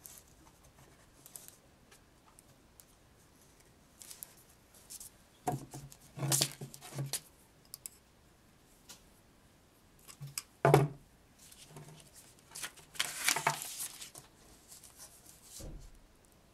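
Handling noise as armature wire is bent with pliers on a paper print: scattered clicks and several short bursts of metallic scraping and paper rustle, the loudest a little past halfway.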